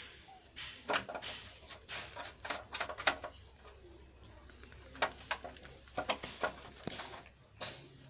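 Copper-wire tool scraping and clicking inside the hollow end of a motorcycle spark plug as it is cleaned: irregular short scratches and clicks, in clusters about a second in, around three seconds, and again from five to eight seconds.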